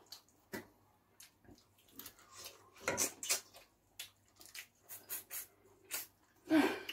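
Close-up eating sounds: chewing and lip smacking on turkey wings and fufu, a string of short irregular wet clicks, with one longer, louder sound near the end.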